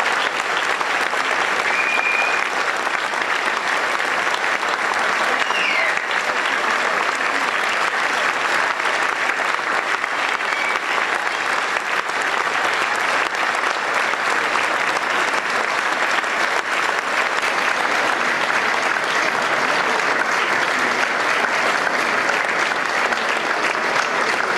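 Audience applauding steadily after a choir performance, with no break. A couple of short high tones cut through about two and five seconds in.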